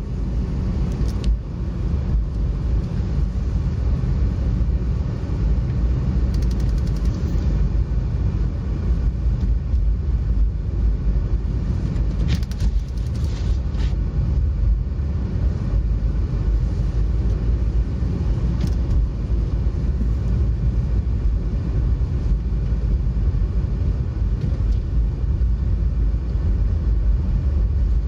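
Steady low rumble of a car's engine and tyres on a snow-covered road, heard from inside the cabin, with a few faint clicks in the middle.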